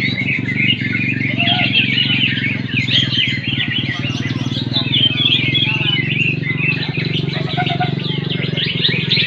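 Cucak ijo (greater green leafbird) singing loud, rapid chirping phrases without pause, mixed with other contest songbirds, over a steady low hum.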